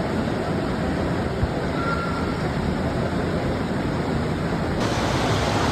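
Steady rushing water, a continuous deep roar with no distinct events.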